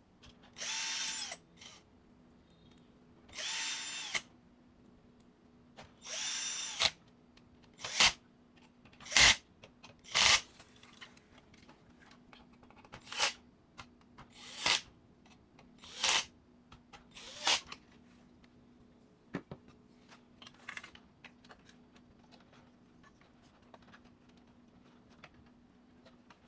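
Cordless electric screwdriver run in about a dozen short bursts while turning the printer's screws. The first few runs last under a second each with a steady motor whine, then come quicker, shorter spurts.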